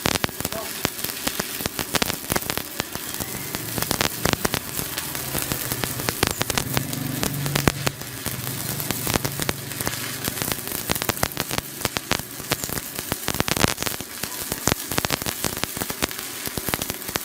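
Stick (arc) welding with a 4 mm electrode on rusty steel plate: the arc crackles and sizzles steadily as the rod burns down in one continuous run, without the rod sticking or the arc breaking.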